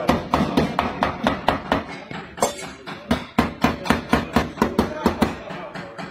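Paintless dent repair tapping: a tap-down tool knocking down high spots on a car's front fender panel in a quick, steady train of light taps, about four or five a second, with a brief break about two and a half seconds in.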